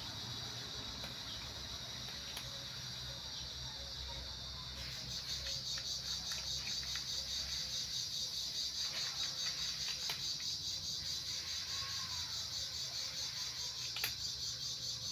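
Steady high-pitched insect chirring that grows louder and pulses rapidly from about five seconds in, with a few faint clicks.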